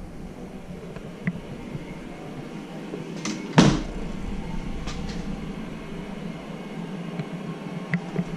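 A door shutting with a single sharp thump about three and a half seconds in, with a few light clicks before and after, over a steady low hum.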